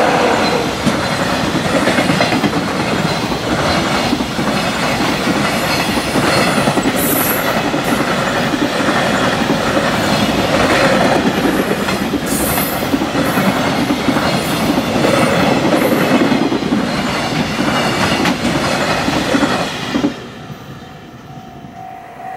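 Long JR Freight container train passing at speed over a level crossing: a dense rumble of steel wheels on rail with rhythmic clickety-clack over the rail joints. The noise falls away sharply near the end.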